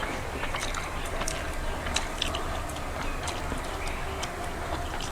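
Close-up eating sounds: chewing with scattered small irregular clicks and smacks of food in the mouth, over a steady low background hum.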